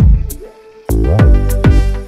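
Background electronic music with heavy drum hits and deep bass notes that fall in pitch. It drops away briefly about half a second in and comes back about a second in.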